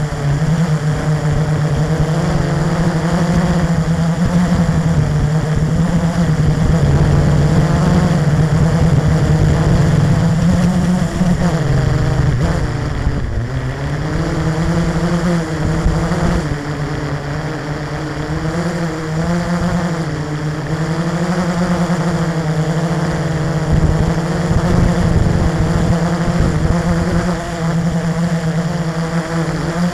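E-flite 350QX quadcopter's four electric motors and propellers droning, heard close up from the craft itself. The pitch wavers up and down with the throttle and dips clearly about twelve seconds in before climbing back.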